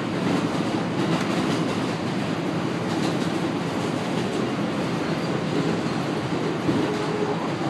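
New York City N train subway car running, heard from inside the car: a steady rumble and rattle from the moving train.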